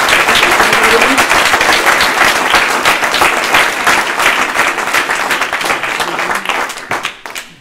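Audience applause in a hall, many people clapping together, starting strongly and fading towards the end.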